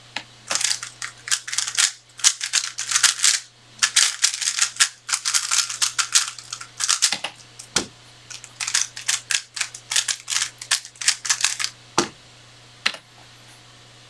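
A 3x3 speedcube's layers being turned very fast in a timed solve: a dense clatter of clicks lasting about seven seconds, then a dull thump. After a short pause a second run of turning clicks follows, ending in another thump about twelve seconds in.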